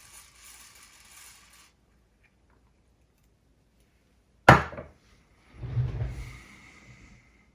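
Isopropyl alcohol spray hissing in short goes, stopping about a second and a half in. About four and a half seconds in, a single sharp knock of something hard set down on the workbench, followed by a second or so of handling and scraping.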